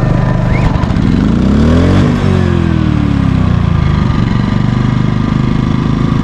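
Briggs & Stratton portable generator running alongside a Honda EU30 generator. About a second in, its engine speeds up, peaks around two seconds, then slows back to a steady run by about four seconds. The Briggs & Stratton is much louder and drowns out the Honda.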